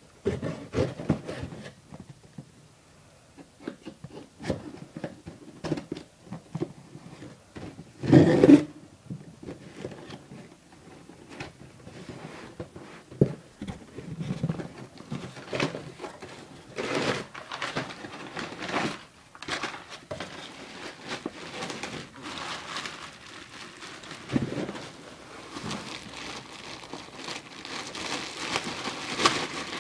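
A Penny skateboard being unboxed: its cardboard box and packaging being handled, with scattered knocks, rustling and crinkling, and a louder bump about eight seconds in. The crinkling grows denser near the end.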